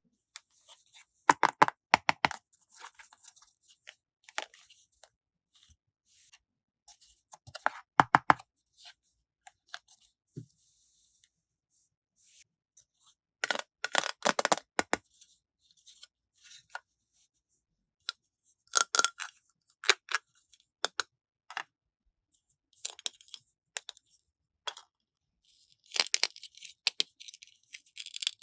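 Plastic toy packaging and small plastic toy pieces being handled and unwrapped: scattered bursts of sharp clicks and crinkling, a few seconds apart, with quiet gaps between.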